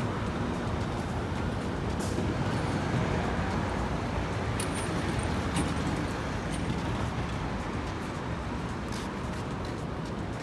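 Steady street traffic noise from cars and other vehicles at a busy city intersection, with a few faint clicks.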